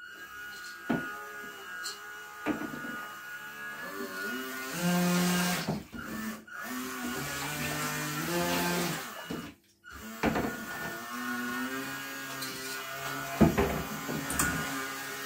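Small electric motor of a 3D-printed RC water jet boat whining, its pitch stepping up and down as the throttle changes and cutting out twice, with a few sharp knocks.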